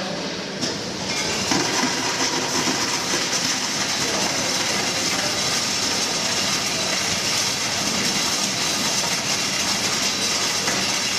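Bulk ice cubes pouring from an ice vending machine's dispensing chute into a plastic bucket: a steady rattling clatter that fills out about a second in.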